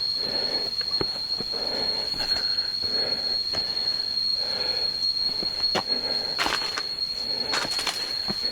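Jungle insects, cicada-like, droning in one steady high-pitched whine, with soft rustles and a few snaps underneath.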